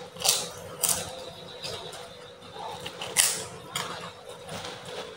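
Crispy white crackers crunching as they are bitten and chewed close to the microphone: a handful of sharp, loud crunches spread through the seconds.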